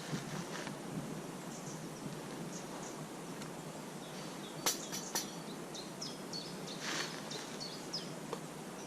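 Woodland ambience: a steady outdoor noise bed with small birds chirping in short high calls throughout. Two sharp clicks come a little past the middle, and a brief scrape-like rustle follows about two seconds later.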